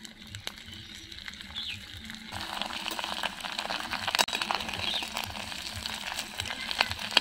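Sun-dried rice-flour kurkure (churri) pieces deep-frying in hot refined oil in a kadhai, sizzling with dense fine crackling. The frying starts abruptly about two seconds in and stays loud.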